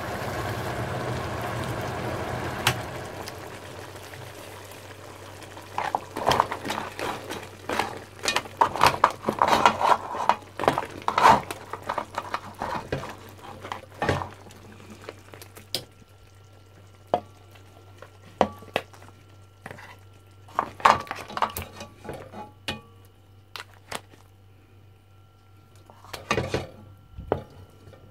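Crab and leeks sizzling in a pot, the sizzle dying away after about three seconds. Then a utensil clatters and scrapes against the pot in several bursts of quick knocks, as the pieces are stirred and lifted out to serve.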